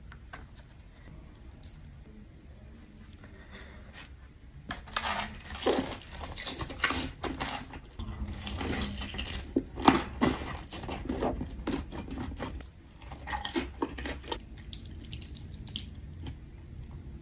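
Close-miked mukbang eating sounds: wet crunches, clicks and smacks of someone biting into and chewing fried chicken and spicy noodles. It begins with only a faint low hum, and the irregular crunching starts about five seconds in and carries on.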